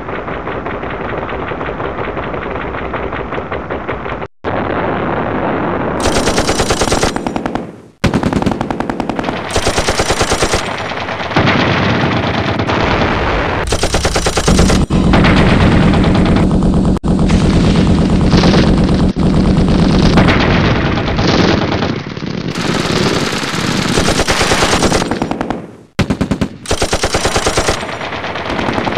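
Loud, harsh rapid-fire rattling, like automatic gunfire, edited into abrupt sections that cut off and restart. Some sections are brighter and some heavier in the low end.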